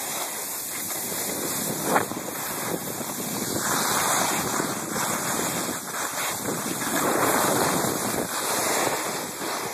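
Wind rushing over a phone microphone during a downhill ski run, mixed with skis hissing and scraping on packed snow; the noise swells and fades with the turns. A single sharp knock about two seconds in.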